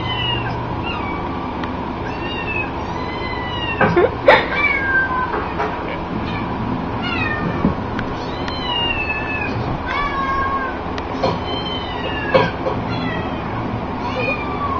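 Cat meowing: a run of short, high, bending mews, about one or two a second, with a few knocks in between, the loudest about four seconds in.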